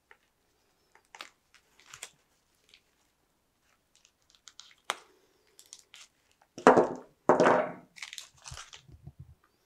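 Small clicks and rustles of hands handling a 1/6 scale action figure as a miniature knife is worked out of its leather vest sheath. About seven seconds in there is a louder burst of rustling, crunching handling noise.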